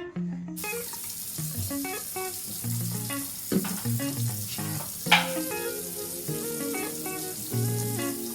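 Background music with plucked guitar-like notes over a steady hiss of running tap water, which starts about half a second in. Two short sharp sounds stand out near the middle.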